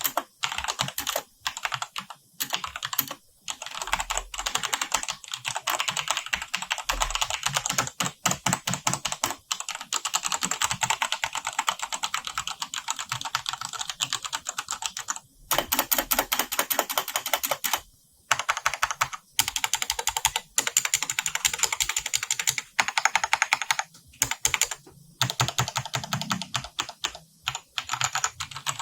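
Mechanical keyboard with linear Cherry MX Red switches and double-shot PBT keycaps being typed on rapidly, a dense patter of keystroke clacks in bursts broken by brief pauses.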